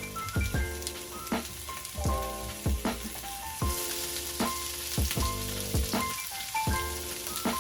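Food sizzling as it fries in a pan, the hiss growing stronger about halfway through. Background music with a steady drum beat and a simple melody plays over it.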